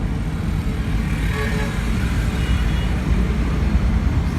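Steady low rumble of road traffic, with faint voices about a second in.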